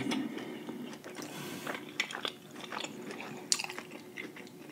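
Chewing a panko-breaded, deep-fried lobster tail: soft, irregular crunching and crackling of the fried breading, with a sharper crunch about three and a half seconds in.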